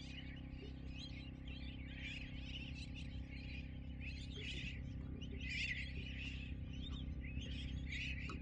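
Many birds calling at once, a dense run of short, overlapping chirps with no steady rhythm, over a steady low hum.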